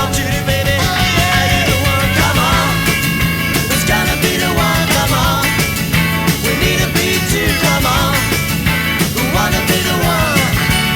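Rock music with singing, a steady drum beat and distorted guitars.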